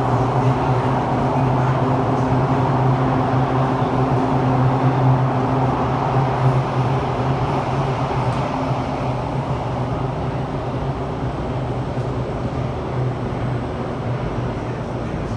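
Running noise inside a KSF CT251 metro train's cabin: a steady low hum with the rumble of the wheels on the track, easing slightly in the second half. The uploader puts the heavy rumble down to flat wheels.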